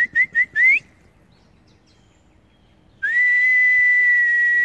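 A shrill whistle calling dogs to come: a few quick rising chirps in the first second, then one long, steady note from about three seconds in.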